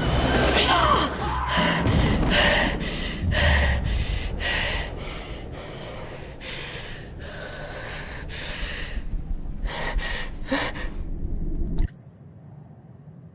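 A woman's rapid, ragged gasping breaths, one about every half second, over a low rumble. The breaths fade in the middle, quicken again, then everything cuts off abruptly about a second before the end.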